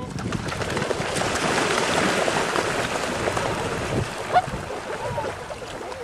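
Steady rushing noise of wind and water, with a few brief bird calls, the loudest about four seconds in and another just after five seconds.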